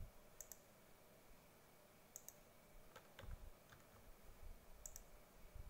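Faint clicks of a computer mouse and keyboard while copying and pasting text: three quick pairs of clicks over near-silent room tone, with a soft low thump about three seconds in.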